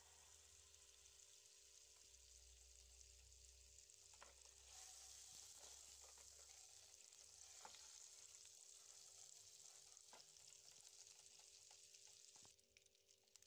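Butter melting and frying in a hot pan: a faint, steady high sizzle with scattered pops. The sizzle grows louder a little under five seconds in. Near the end it thins to separate crackles.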